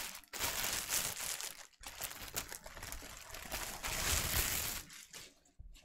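Clear plastic bag crinkling and rustling as a mask is worked out of it by hand. It comes in bursts with brief gaps about a third of a second and nearly two seconds in, and dies down near the end.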